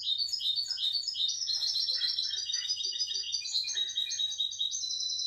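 Newly caught European goldfinch singing: a rapid, unbroken twittering run of short high notes.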